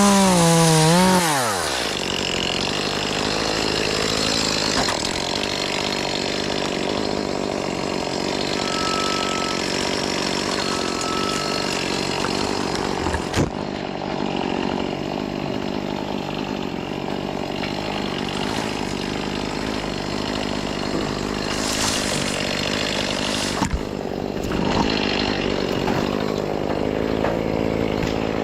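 Chainsaw revving up sharply and falling back in the first couple of seconds, then running steadily at a lower speed, with a couple of brief sharp knocks along the way.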